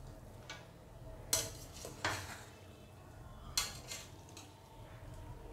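A metal spoon stirring cooked biryani rice in a stainless steel pressure cooker, scraping and clinking against the inside of the pot, with three louder scrapes spread through the few seconds.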